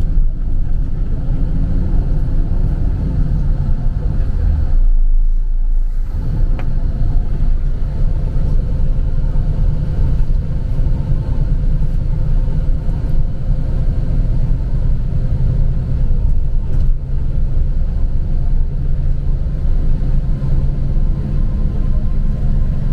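Steady low rumble of a vehicle driving at speed, engine and road noise heard from inside the cabin. The rumble dips briefly about five seconds in.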